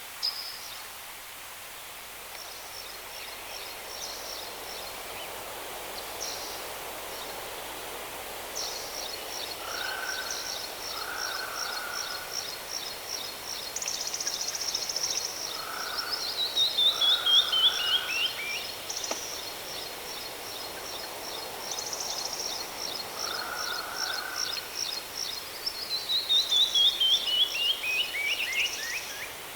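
Waterfall rushing steadily while birds sing over it: long, high, rapid trills, twice ending in a run of notes falling in pitch, with a few short lower calls in between.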